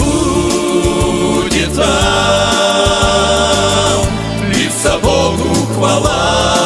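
Men's vocal group singing a slow Russian hymn in harmony over an instrumental accompaniment with a steady bass line, holding long notes between phrases.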